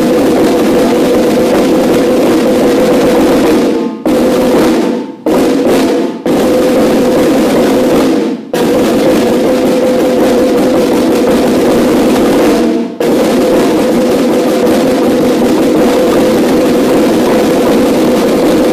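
A section of marching snare drums playing in unison: dense, rapid strokes and rolls, loud, broken by a handful of sudden short stops where all the drums cut off together.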